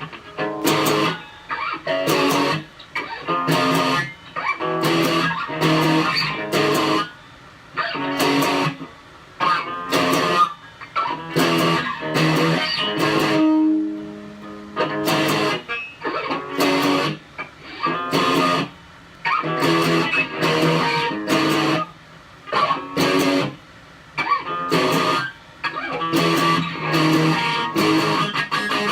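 Electric guitar played unaccompanied, chords strummed in short, choppy strokes grouped into phrases with brief gaps between them; about halfway through one chord is left to ring out longer.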